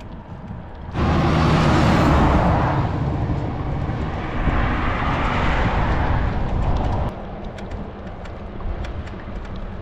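Wind rushing on the microphone and tyre hum from a loaded touring bicycle riding along the highway shoulder, with a car passing, cutting in abruptly about a second in and cutting out around seven seconds. After that, quieter road noise.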